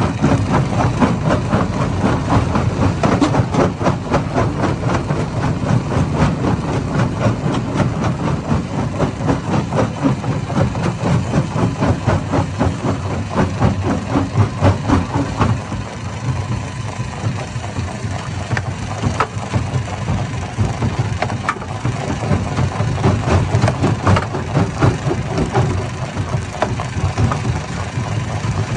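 Stone crusher at work: a steady low engine drone under a dense, uneven clatter of rocks knocking and breaking inside the hammer crusher.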